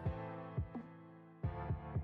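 Background music: sustained tones with soft low beats.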